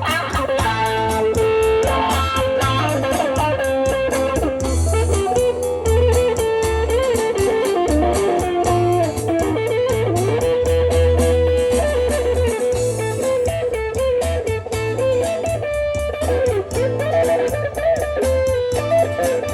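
Band music led by an electric guitar playing a solo, a single melodic line with bent notes over bass and a steady drum beat.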